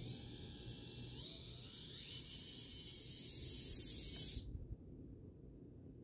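Micro RC crawler's brushless motor and gearing whining with a high hiss as it drives, the whine rising in pitch as the truck speeds up. It then stops abruptly about four and a half seconds in.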